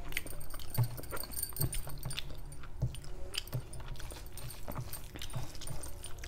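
Close-up chewing with irregular wet mouth clicks and smacks, several a second, while fingers mix rice with chicken kofta curry on a steel plate.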